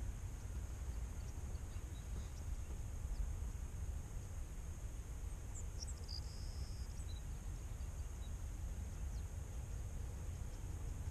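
Wind rumbling on the microphone over a steady high-pitched hiss in a salt marsh, with a few brief bird chirps about halfway through.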